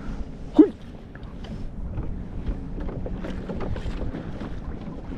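Wind buffeting the microphone and choppy water splashing and slapping against a kayak's hull, with one short, loud pitched sound that glides up and down about half a second in.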